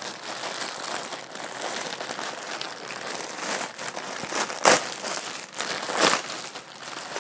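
Clear plastic bag crinkling and rustling as it is handled and pulled open, with two sharper, louder crackles in the second half.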